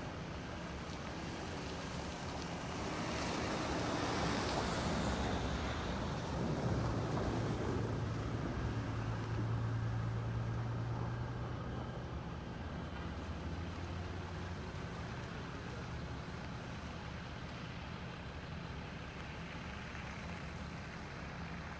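A minivan drives past close by and pulls away along a snow-covered road. Its tyre noise and engine hum swell to a peak about four to seven seconds in and fade by about fourteen seconds, over steady background traffic noise.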